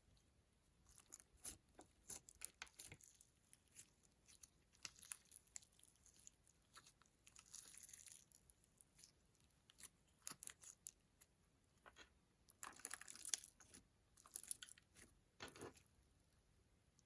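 Soft, irregular crackles, clicks and short scrapes from slime and makeup being worked by hand, with longer scraping runs midway and toward the end.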